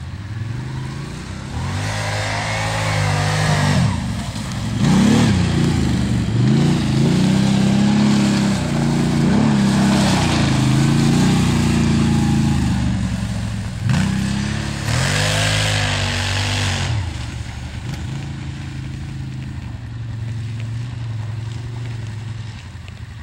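ATV engine revving as the quad is ridden over snow and mud, its pitch climbing and falling several times with the throttle. It settles to a steadier, quieter idle near the end.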